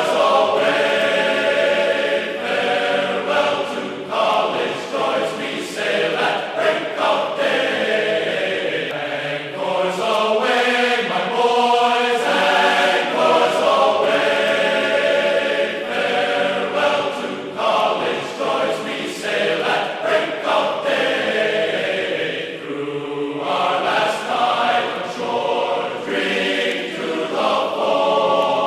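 Music with choir-like sung voices, playing steadily throughout.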